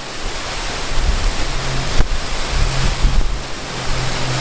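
Strong wind gusting over the microphone: a loud, continuous rushing with buffeting low rumbles. A low steady hum comes in about a second and a half in, and there is a single sharp click about two seconds in.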